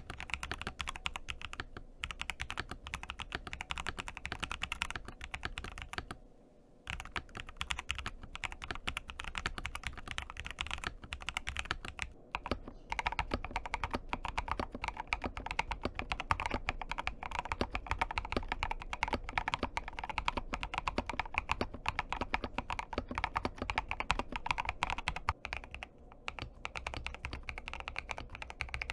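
Razer BlackWidow V4 75% mechanical keyboard being typed on fast and continuously, a dense run of keystroke clacks with a few brief pauses.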